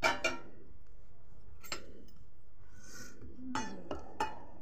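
Steel spoon clinking against a small stainless steel bowl while stirring spice powders and chickpea cooking water into a masala batter: two clinks at the start, one a little before the middle, and a cluster near the end.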